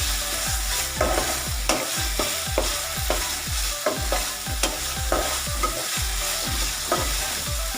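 Spice paste sizzling as it fries in oil in a pan, stirred and scraped with a spatula in steady, repeated strokes, about three a second: the masala being sautéed (kosha) for a curry.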